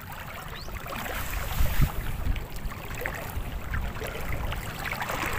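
Seawater sloshing and swishing around the legs of people wading waist-deep through shallow water, with soft irregular splashes. Wind buffets the microphone in low rumbles.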